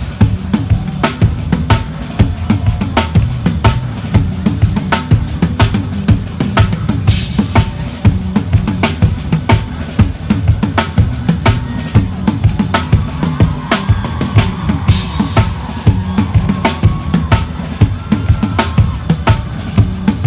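Loud band music from the stage, driven by a steady drum-kit beat of kick and snare, with cymbal swells twice.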